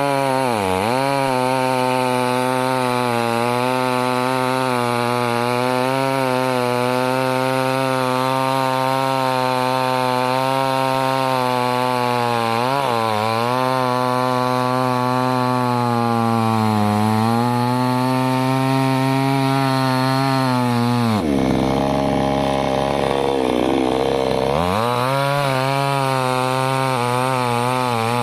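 Chainsaw running at high speed while cutting wood, its engine pitch dipping briefly several times as it is loaded in the cut. About three quarters of the way through, the pitch drops lower and the sound turns rougher for a few seconds, then climbs back up.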